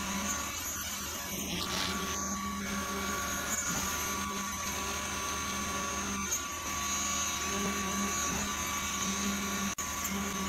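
Steady whine of a running motor, such as a power tool or small machine, with a momentary break near the end.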